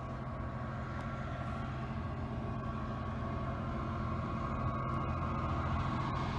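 Freight train approaching: a steady low engine drone with a faint higher whine, growing gradually louder.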